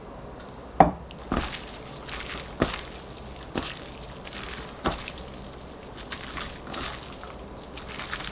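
Irregular knocks and clatter of objects being handled, about five sharp ones in the first five seconds, with softer scraping and rustling between them.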